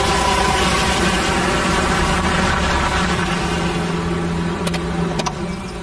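Volkswagen Passat estate car driving up and slowing to a stop, its engine and tyre noise easing off. Two short clicks come near the end.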